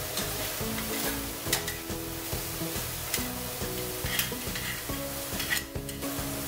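Mushrooms and fried bean curd sizzling in a hot wok while a metal spatula stirs and tosses them, with several sharp clicks of the spatula against the pan. Soft background music plays underneath.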